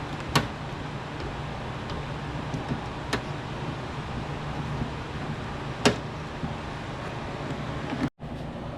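Three sharp plastic clicks, a few seconds apart, as a 2005 Toyota Sienna's interior door panel is handled and hung on the door, over a steady low hum.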